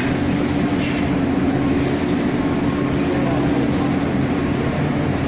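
A machine running steadily: a constant loud hum with a strong low tone and a hiss above it.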